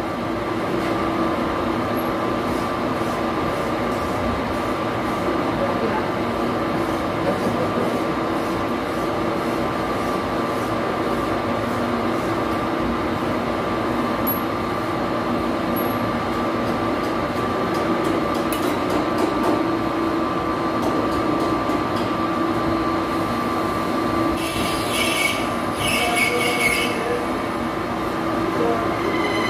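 Metal-cutting engine lathe running steadily while turning a fountain nozzle part: a continuous mechanical hum with a steady whine above it. Near the end a brighter, hissing noise comes in for a few seconds.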